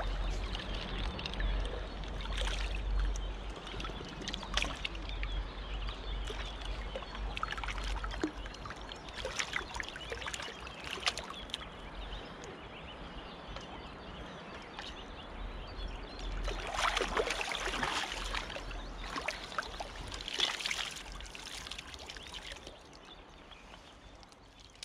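River water splashing and lapping around hands in the shallows as a caught asp is held and released, with two louder bouts of splashing in the second half, over a steady low rumble. The sound fades out near the end.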